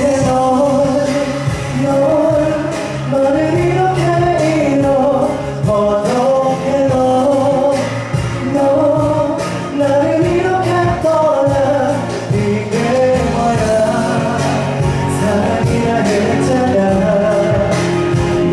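A male singer singing a melodic line into a handheld microphone over amplified instrumental accompaniment with a steady beat.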